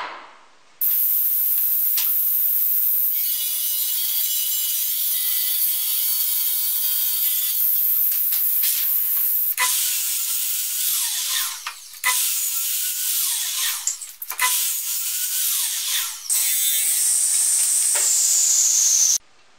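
Power saws cutting plywood: a steady stretch of sawing, then a sliding mitre saw making several short cuts, its motor whine falling away as the blade spins down after each one. Near the end a table saw runs steadily.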